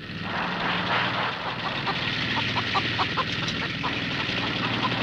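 A steady mechanical drone like a motor running, with short, high chirps repeating over it for a couple of seconds in the middle.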